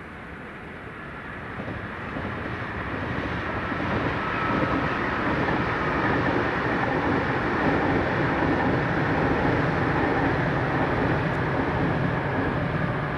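Czech Railways class 680 Pendolino electric tilting train passing: the rush of the train grows over the first few seconds, then holds steady, with a faint high whine over it.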